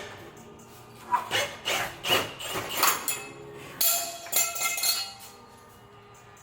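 Metal tools clanking and knocking against metal under the car: a run of irregular sharp strikes, some of them ringing briefly after about four seconds in.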